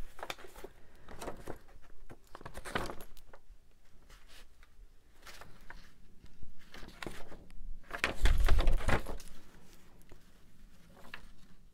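Sheets of paper being handled and shuffled, with light rustles and clicks and one louder burst of handling noise about eight seconds in.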